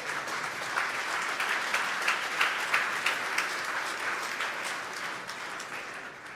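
Crowd applauding: dense clapping that swells and then dies away near the end.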